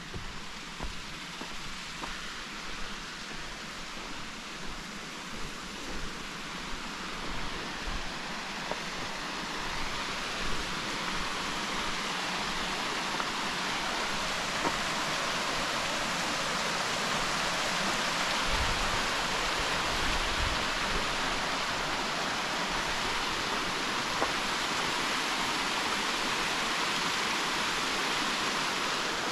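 Steady rush of falling water from a mountain waterfall, growing louder over the first dozen seconds and then holding steady, with a few light ticks in the first half.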